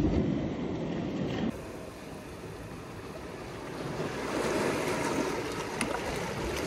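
Sea water washing and lapping among shoreline rocks, a steady rushing noise that swells a little from about four seconds in, with some wind on the microphone.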